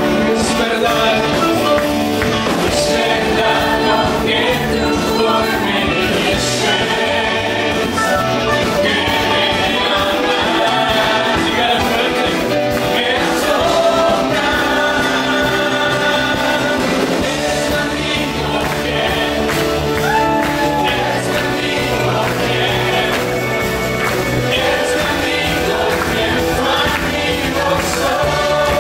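Live worship band playing a gospel song, a man singing lead into a microphone over guitar and drums.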